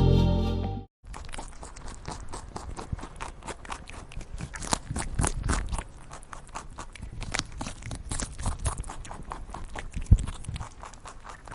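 Rabbits crunching and chewing, heard as a dense run of small irregular crackly clicks, with one sharper knock about ten seconds in. Synthesizer music ends just before the crunching starts, about a second in.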